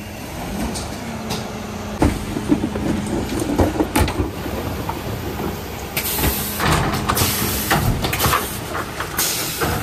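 Refuse truck running with a steady low hum while wheelie bins knock and clatter against its Zoeller rear lifter, then the lifter raises and tips a bin with rattling and hissing.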